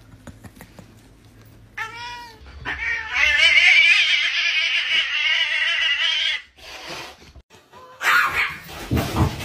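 A cat meows briefly about two seconds in, then gives one long yowl of about four seconds, a caterwaul. A burst of noisy sound follows near the end.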